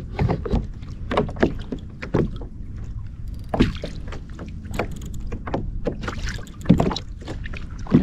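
Small waves of light chop slapping and lapping against a kayak's hull, in irregular knocks about once a second, the loudest near the end, over a steady low rumble.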